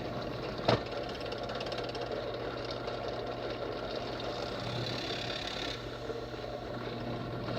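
Steady hum of an electric shop motor running, with a single sharp click under a second in.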